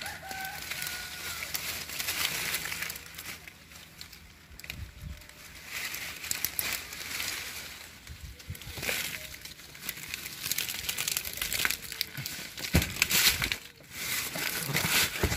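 Star apple tree leaves and twigs rustling and crackling, with dry fallen leaves crunching, in an irregular run of crackles as someone pushes through the branches close to the microphone. A few low thumps near the end.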